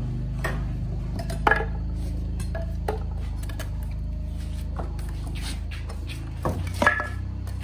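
Several sharp metallic clinks and knocks, the loudest about one and a half seconds in and two more close together near the end, over a steady low hum.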